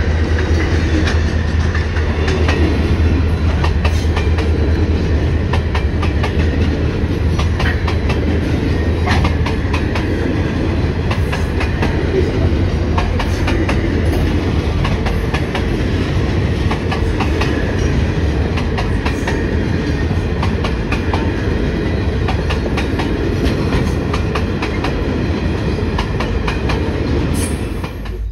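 Grain hopper wagons of a freight train rolling past close by: a steady rumble with the clickety-clack of wheels striking rail joints. The deep part of the rumble eases after about six seconds.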